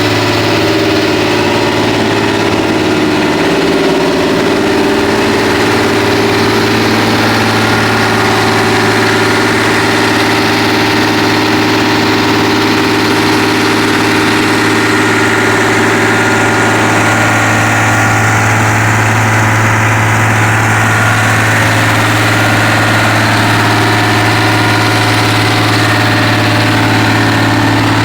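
Gas-engine-driven air compressor running at a steady speed, a loud, even engine drone with no change in pace.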